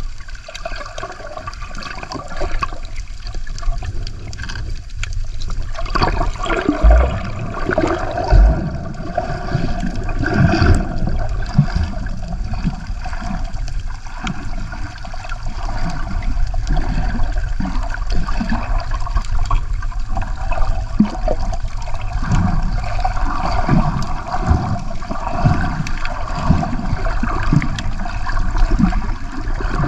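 Water sloshing and gurgling around a camera held underwater near the surface: a continuous rushing wash with many short bubbly splashes, and two low bumps about a third of the way in.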